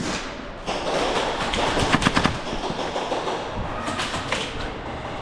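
Airsoft guns firing: a rapid burst of shots about two seconds in and a few more shots near four seconds, over a rough rustling noise.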